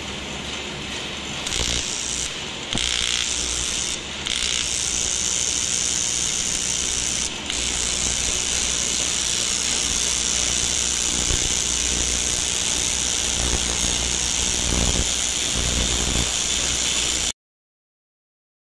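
TIG welding arc buzzing steadily on an aluminium motorcycle cylinder block, with a few brief breaks in the first few seconds as the arc is stopped and restarted. The sound cuts off abruptly near the end.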